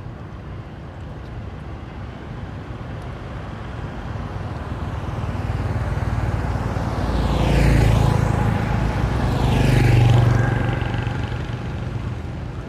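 Two road vehicles passing close by one after the other, the engine and tyre noise swelling to a peak about eight seconds in and again about ten seconds in, then fading away.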